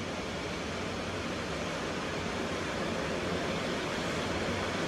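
Steady rush of ocean surf, waves breaking on the beach in an even wash of noise.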